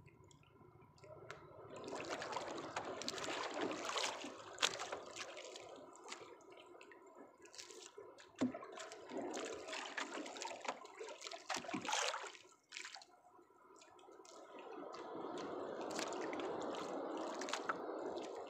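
Water sloshing and trickling around a small boat, rising and falling in waves, with a few light knocks.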